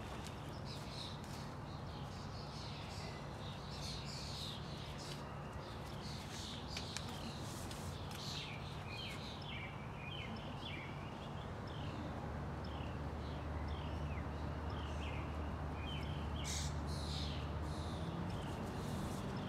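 Songbirds chirping again and again, with a few light clicks. Underneath runs a low steady hum that grows louder and deeper from about twelve seconds in.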